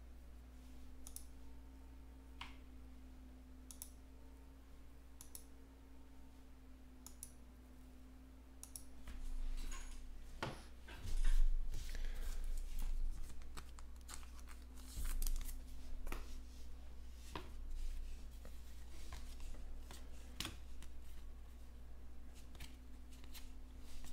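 A few faint clicks, then from about nine seconds in, hands handling a stack of trading cards, with the cards and pack wrappers rustling and sliding against each other in irregular bursts.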